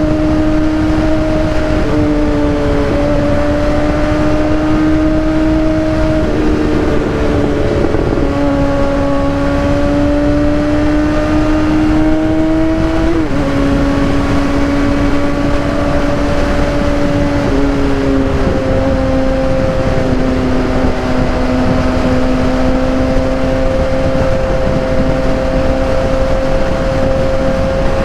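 The inline-four engine of a 2015 Kawasaki ZX-6R 636, fitted with a Racefit aftermarket exhaust, is heard while riding. It holds a steady engine note that climbs slowly in pitch and dips sharply several times, about 2, 6, 13 and 17 seconds in.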